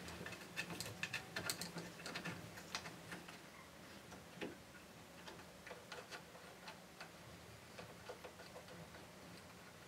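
Faint, irregular small clicks and ticks of an Allen key turning the socket-head screws that fasten a 3D printer tool head to its carriage, with light knocks of the plastic parts as they are handled. The clicks come thickest in the first few seconds and then thin out to occasional ticks.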